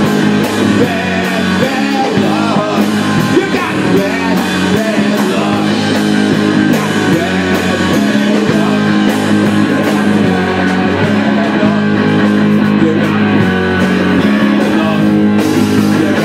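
Live rock band playing a song: electric guitars and a drum kit keeping a steady beat, with singing.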